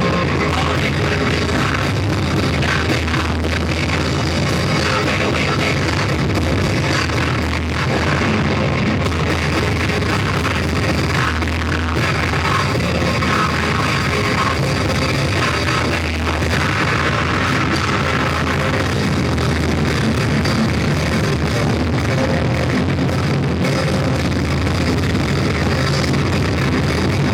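Live rock band playing loud and steady, with electric guitars and drums, in a poor, distorted recording.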